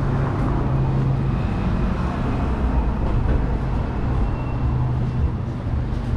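City street traffic, with a vehicle's engine running close by as a steady low hum over the general road rumble; the hum weakens towards the end.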